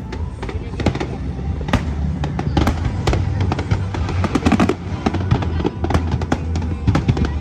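Fireworks bursting and crackling, many sharp bangs in quick succession, with music playing underneath.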